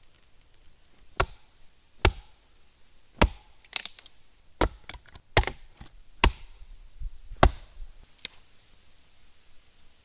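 Wood being chopped: about nine sharp strikes, roughly one a second, with a quick double strike a little before the middle.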